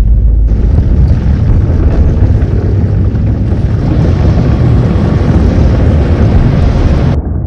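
A loud, continuous low rumble with a hiss over it, like an explosion or blast sound effect; the hiss sets in about half a second in and cuts off abruptly near the end, leaving a duller rumble.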